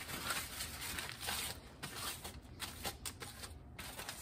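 Paper towel wiping water off a copper etching plate, heard as a series of short scuffing, rubbing strokes.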